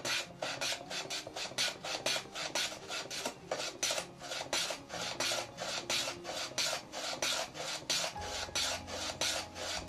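Bench hand plane run on its side along a shooting board, trimming a pine board: a quick, even run of rasping cutting strokes, about four a second.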